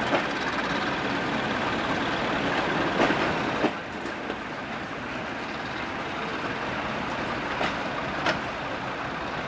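A train hauled by a British Railways Class 14 diesel-hydraulic locomotive rolling slowly past and away, its coaches' wheels running over the track. There are sharp clicks from the wheels over rail joints about three seconds in, again shortly after, and twice near the end. The sound eases slightly after about four seconds as the train draws off.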